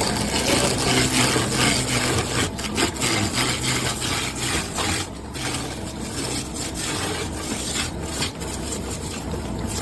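A wooden charpai leg being shaped: a tool scraping and rasping against the wood in quick, uneven strokes, over a low steady hum that fades about two-thirds of the way through.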